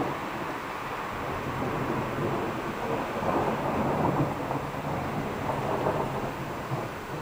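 Thunder rumbling, swelling a few seconds in and easing off near the end.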